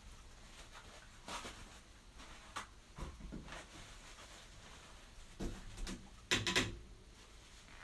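Oil-painting tools being handled and used: a few scattered soft knocks and brushing scrapes, then a quick cluster of taps near the end, which is the loudest part.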